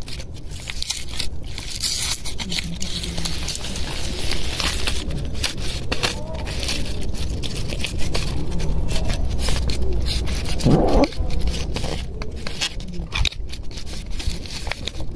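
Foil cat-food tray being scraped and crinkled as wet food is pushed out onto a paper plate: a run of small scrapes and crackles. One short rising cry about eleven seconds in.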